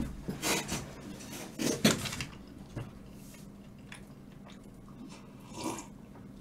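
Clatter and rustling of things being handled and set down on a table, a few loud bursts in the first two seconds and one more near the end.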